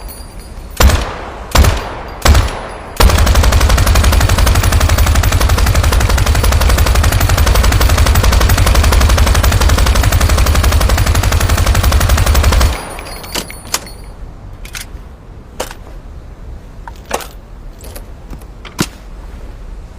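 M60 machine gun, 7.62 mm, firing: three short bursts in the first few seconds, then one long unbroken burst of about ten seconds that cuts off suddenly. After it come a few scattered, quieter single cracks.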